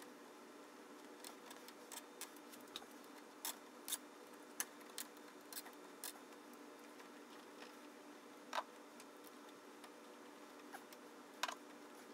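Scattered light clicks and snips of pliers and copper wires being twisted and handled as wire nuts are tightened on a water heater's power connections, over a faint steady hum.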